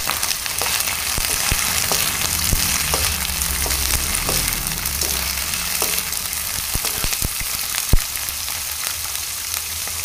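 Yard-long beans sizzling in hot oil as they are stir-fried, with a wooden spatula knocking against the pan now and then and one sharper knock near the end.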